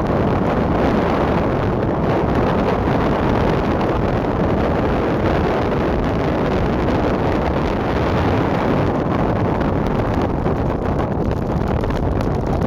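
Heavy storm surf breaking, a steady loud wash of noise, with strong wind buffeting the microphone.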